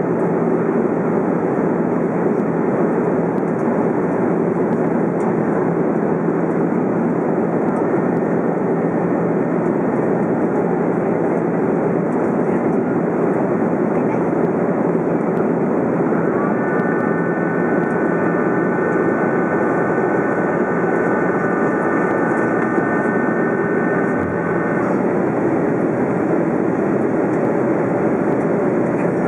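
Airbus A330 cabin noise in flight: a steady roar of the jet engines and airflow heard through the cabin wall. A faint, steady high whine joins for several seconds past the middle.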